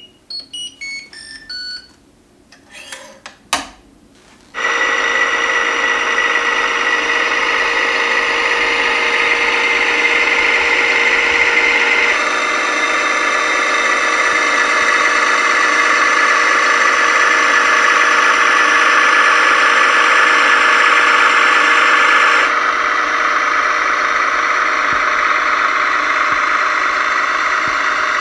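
Hydraulic pump of a Kabolite K350 RC excavator model starting about four and a half seconds in and running with a steady high whine. Its level steps up about twelve seconds in and drops back near twenty-two seconds.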